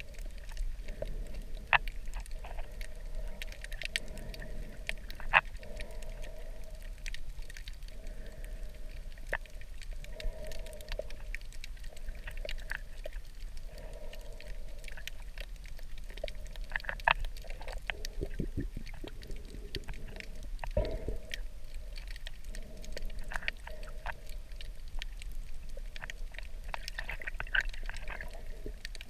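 Underwater sound from a camera submerged over a coral reef: a steady low rumble with many scattered sharp clicks and crackles throughout.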